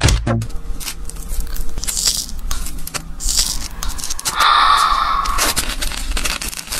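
Wet crackling and tearing as the inner membrane of a half-hatched chicken egg (maodan) is peeled off by hand. There is a louder stretch of tearing about four and a half seconds in.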